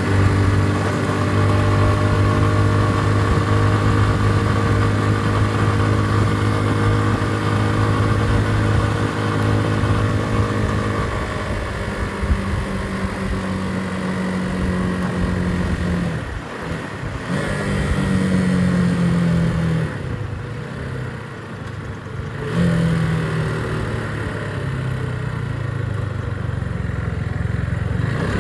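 Motorcycle engine running while being ridden: a steady engine note for about the first ten seconds, then the pitch falls as the bike slows. The level dips twice in the second half, and the engine picks back up after each dip.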